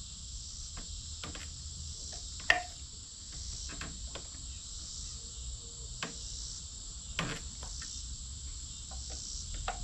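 Steady high-pitched chorus of insects, with scattered light clicks and knocks; the sharpest knock comes about two and a half seconds in.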